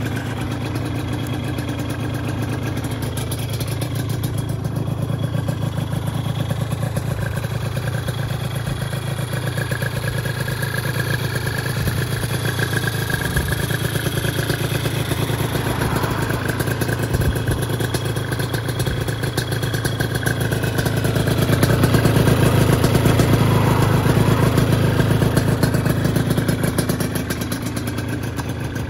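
Aprilia SR125 scooter engine, bored out to 172cc, running steadily at idle. It gets louder for a few seconds about three-quarters of the way through.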